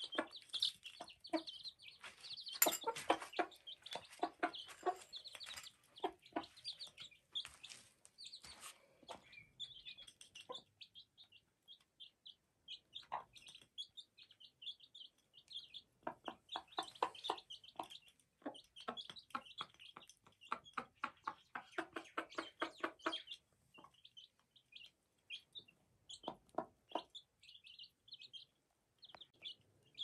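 Mother hen clucking in quick runs of short clucks while she pecks at the feed with her chicks, the hen's food call to the brood. Over it the chicks keep up a constant high peeping.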